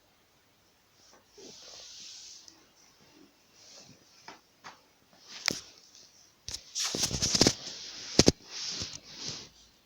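Washing up at a kitchen sink: short hissing swishes of scrubbing or rinsing, with hard knocks and clatter of dishes or a pot being handled. The clatter is loudest a little after the middle.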